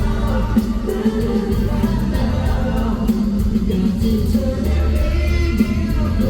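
Thai pop song performed live over a concert PA, with sung vocals over a heavy, steady bass.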